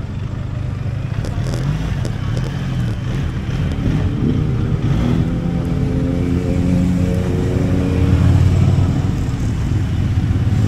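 Motorcycle engine running steadily at low road speed, with a rising hum that is loudest about eight seconds in.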